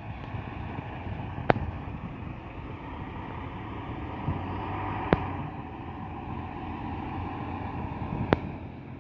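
A bus's engine running as it drives off and away along the street, with wind noise on the microphone. Three short sharp clicks stand out over it, about one and a half, five and eight seconds in.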